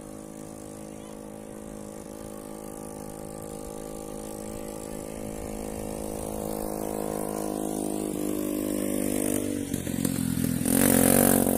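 A motor engine running at a steady speed, growing gradually louder over several seconds, with a loud rush of noise near the end.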